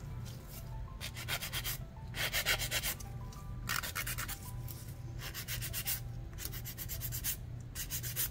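Nail file rasping back and forth across a cured polygel nail tip, in short runs of rapid strokes with brief pauses between.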